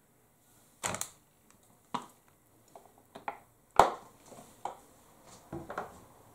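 A plastic bottle of vegetable oil being handled and set back down on the cooker: a string of separate clicks and knocks, the sharpest and loudest about four seconds in.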